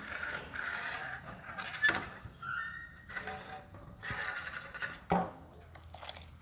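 Soaked rice being tipped into a pot of boiling water, which bubbles and hisses, with a few sharp knocks against the pot.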